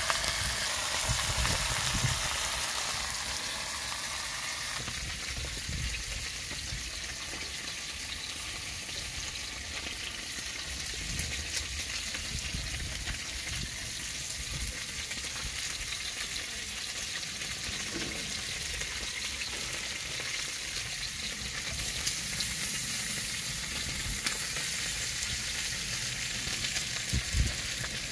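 Beef steak, tortillas and green chiles sizzling in a frying pan on a portable gas camp stove, a steady frying hiss. A few low knocks and rumbles near the start and a louder knock near the end.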